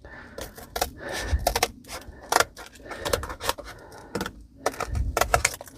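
Paper sink template being cut, a rapid irregular series of sharp snips and crackles as the corners are cut off.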